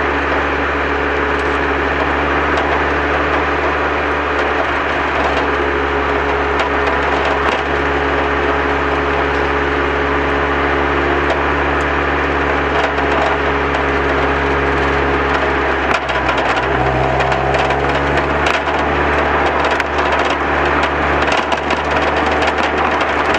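Lotus Elise S2's four-cylinder engine running at a steady speed, heard from the car. About two-thirds of the way through the pitch steps up, and from then on sharp crackling clicks run over the engine sound.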